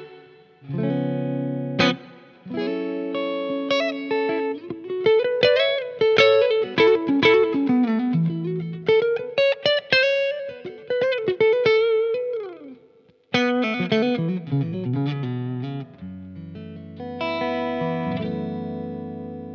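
Umeda UST QM24 electric guitar on a clean tone, neck humbucker with its coil split to single-coil. It opens with held chords, moves into quick single-note runs with slides, pauses briefly, and ends on a chord left to ring out.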